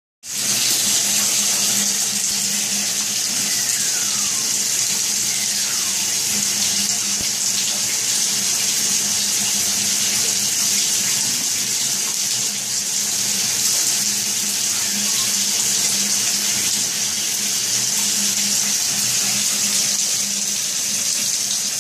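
Shower running steadily, its spray hissing against a tiled wall.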